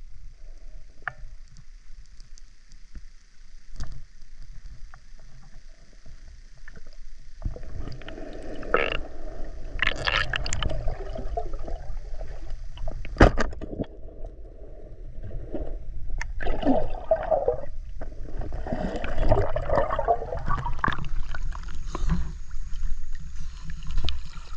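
Water gurgling and sloshing around a camera moving through a river while diving, over a steady low rumble. Busier churning comes in two stretches, with a few sharp knocks, the loudest about halfway through.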